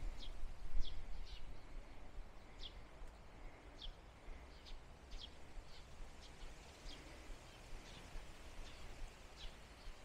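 Small birds chirping in the trees: short, high, falling notes repeated irregularly about once or twice a second, over a steady low rush of wind.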